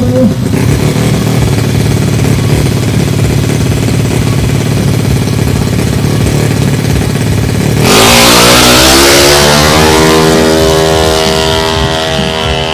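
Drag-bike motorcycle engine running at the start line, then about eight seconds in it is opened to full throttle for the launch, getting suddenly louder and climbing in pitch as the bike accelerates away down the strip.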